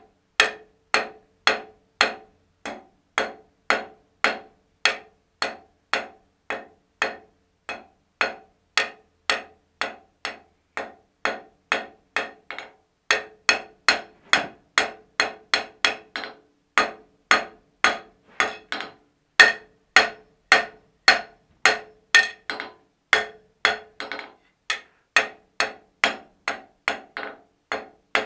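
Hand hammer striking a red-hot steel strap on an anvil in a steady rhythm of about two blows a second, each blow with a short ring from the anvil, now and then a lighter tap after a blow.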